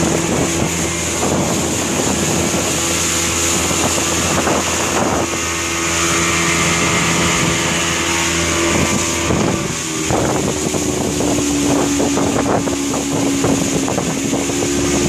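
Small open motorboat under way: its engine runs steadily over the rush and slap of water against the hull, with wind on the microphone. About ten seconds in, the engine note shifts a little lower.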